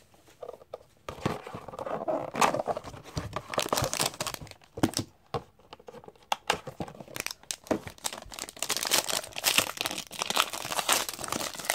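Cardboard hobby box of hockey cards handled and opened, with irregular scrapes and taps, then a foil card pack crinkling steadily as it is handled and opened from about eight seconds in.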